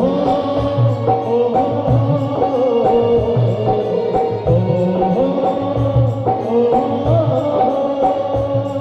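Music with a steady drum beat under a wavering melody.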